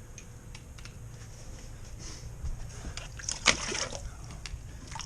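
Water splashing and dripping at an ice-fishing hole, with scattered small clicks and a brief louder splash about three and a half seconds in, over a steady low hum.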